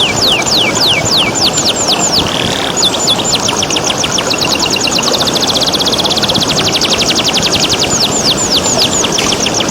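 Domestic canary singing: runs of quick downward-sweeping whistled notes, breaking about four seconds in into a fast, even trill of short notes that lasts several seconds before the sweeps return. Running water hisses steadily underneath.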